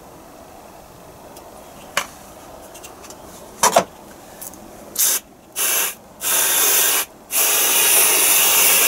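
Aerosol can of squirty whipped cream spraying in four hissing bursts, the last one long. A couple of short clicks come before the first burst.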